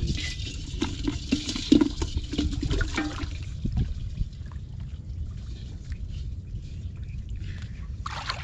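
Water splashing and sloshing as a man wades chest-deep and gropes with his arms in the water of a bamboo fence trap. The splashing is busiest in the first few seconds, quieter after, with a short splash near the end.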